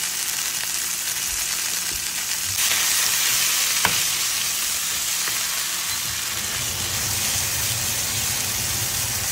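Pork chorizo sizzling in oil in a nonstick frying pan while it is broken up and stirred with a wooden spatula. The sizzle grows louder a little under three seconds in, with one sharp click about four seconds in.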